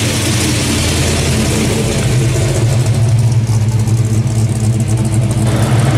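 Engine and exhaust of a classic 1960s American car running steadily at low revs as it drives slowly past.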